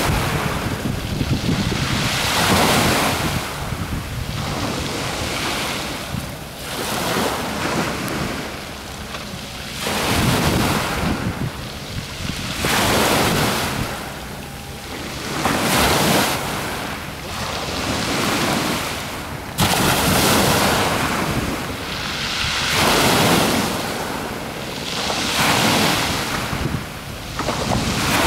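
Small waves washing onto the shore, surging about every two to three seconds, with wind on the microphone.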